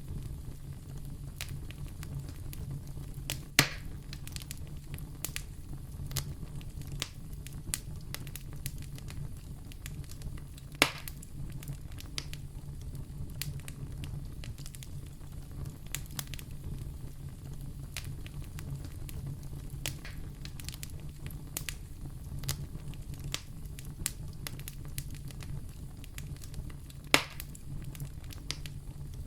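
Wood fire crackling in a fireplace: a steady low rumble of flame with frequent small crackles and three louder pops, about three seconds in, eleven seconds in and near the end.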